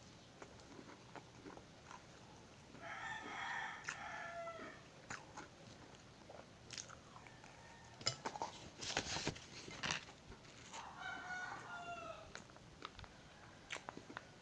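A rooster crows twice in the background, about three seconds in and again near eleven seconds, each crow ending on a falling pitch. Between the crows comes crisp crunching and chewing from bites of a fried empanada's crust, loudest around eight to ten seconds in.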